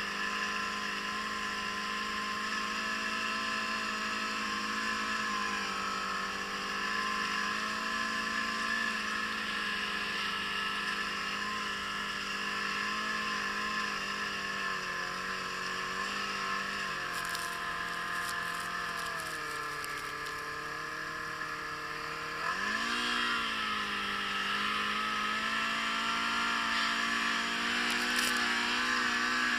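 Yamaha Apex RTX snowmobile's four-cylinder four-stroke engine running at cruising speed, with a steady hiss of wind and snow over it. Its pitch sinks as the throttle eases past halfway, then rises sharply about three-quarters through as the sled accelerates, and holds higher to the end.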